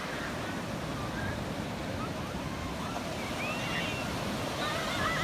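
Ocean surf breaking and washing steadily on the shore.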